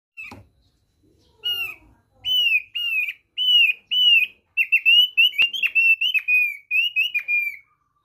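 A caged opior paruh tebal singing a string of clear, downslurred whistles, about two a second at first. From about halfway through they come faster and more jumbled, and they stop just before the end.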